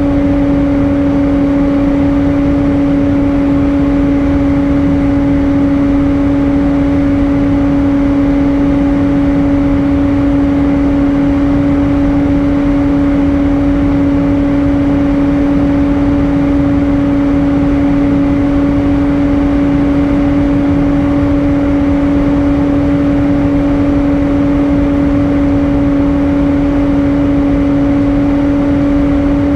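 Airbus A320 cabin noise in flight: a steady rush of air and jet engines with an unchanging hum at two pitches, the higher one an octave above the lower.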